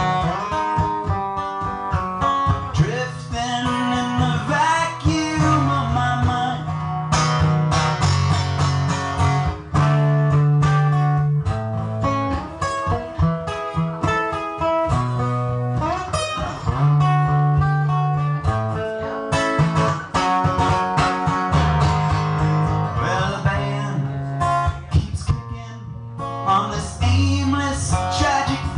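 Solo acoustic guitar playing an instrumental passage of a song, with strummed chords.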